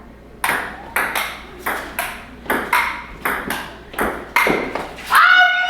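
Table tennis rally: a celluloid ball clicks back and forth off paddles and table, about a dozen quick hits, two to three a second. Near the end a voice cries out.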